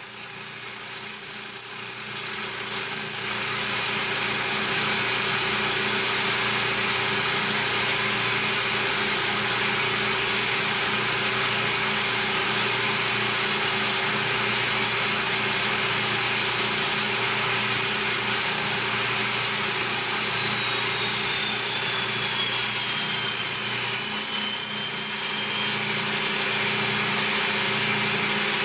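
CNC milling machine machining a part: a steady hiss of cutting and spindle noise under a low hum, building up over the first few seconds. Twice a high whine slowly falls in pitch, once near the start and again in the last third.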